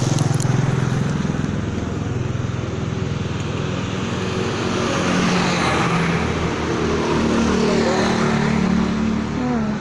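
A motor vehicle's engine running close by on the road, its noise swelling and then fading as it passes through the middle.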